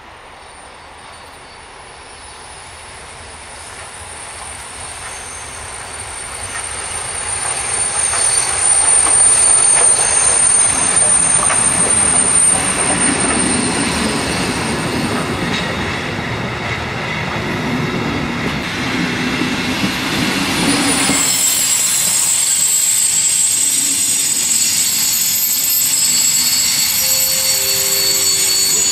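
Steam-hauled passenger train passing over curved pointwork, growing louder over the first eight seconds or so as it approaches. The coaches' wheels clatter and give a high, steady squeal on the curves, strongest near the end.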